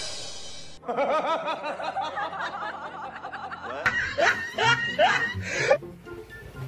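A man's rapid, repeated chuckling laugh over background music, followed about four seconds in by a few sharp, rising cries.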